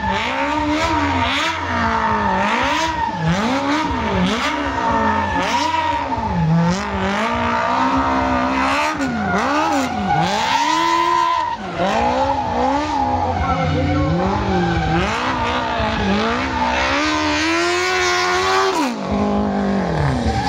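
Smart Fortwo stunt car spinning donuts: its engine revs up and down about once a second, over a steady high tyre squeal as the rear tyres spin and smoke. Near the end the revs drop sharply, then pick up again.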